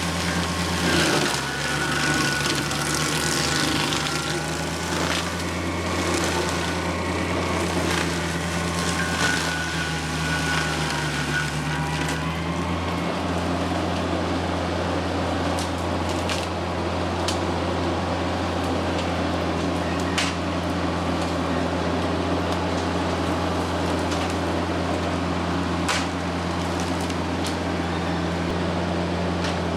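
TYM tractor's diesel engine running steadily at working speed, driving a Baumalight forestry mulcher. For about the first twelve seconds the sound is rougher and busier as the mulcher chews through brush and wood; after that it runs steady, with a few sharp cracks.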